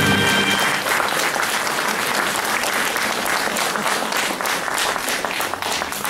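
Audience applauding, a dense clapping that thins into scattered separate claps near the end. The last notes of a song's backing music die away in the first second.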